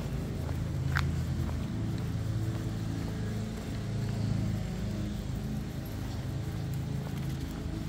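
A motor vehicle's engine, a low steady rumble, with one sharp click about a second in.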